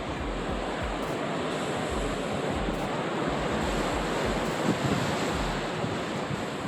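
Steady rush of the sea streaming past a moving ship's hull, with gusts of wind buffeting the microphone in uneven low thumps.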